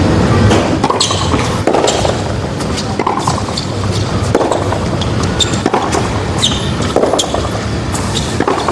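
Tennis rally on a hard court: racket strikes on the ball and its bounces, a sharp pop about once a second, over a steady low background hum.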